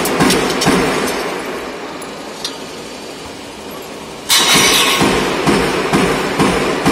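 Shutter-door roll forming machine running, its punching station stamping holes in the steel strip with a sharp metal clack about twice a second. The stamping stops for about three seconds, leaving the machine's quieter run, then starts again suddenly and loudly a little past the middle.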